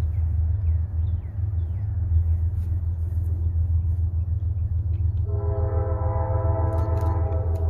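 A locomotive air horn sounds about five seconds in, several steady tones together as one chord, held. A steady low rumble runs underneath throughout, with a few faint short chirps near the start.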